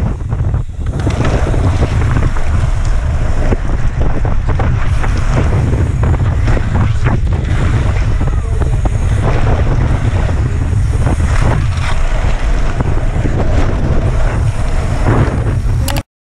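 Wind buffeting the microphone of a rider-mounted camera on a BMX bike moving fast over a dirt race track, a loud steady rumble with scattered clicks and knocks from the bike and track. It cuts off suddenly near the end.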